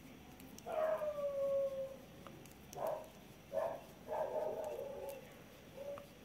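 High-pitched whining vocal calls: one long call about a second in that slides slightly down in pitch, then four shorter calls at about the same pitch.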